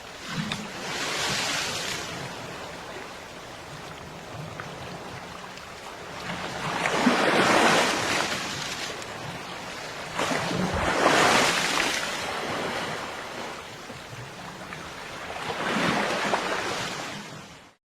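Ocean surf: waves breaking and washing up on a beach in four slow swells that rise and fall, cutting off abruptly just before the end.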